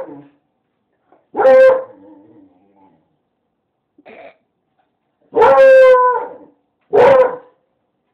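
Dog barking in drawn-out, falling cries: one about a second and a half in, a faint one near the middle, then a long one and a shorter one near the end.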